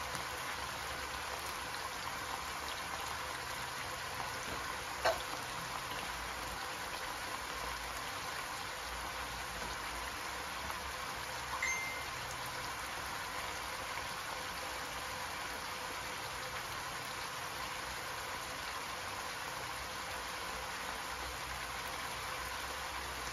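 Diced sweet potato simmering in a little water in a nonstick wok: a steady bubbling sizzle. A single sharp click about five seconds in, and a short high beep near the middle.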